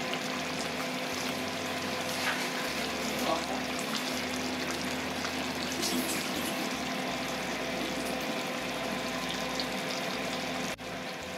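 Chicken biryani masala gravy with tomatoes and green chillies simmering in a wok on a gas stove: a steady bubbling sizzle with small crackles, over a steady hum. It breaks off with a click near the end.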